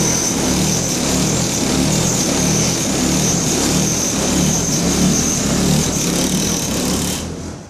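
Clothes dryer running with a loud, steady grinding noise, a rough low rumble with a hiss-like high band over it. It falls away near the end.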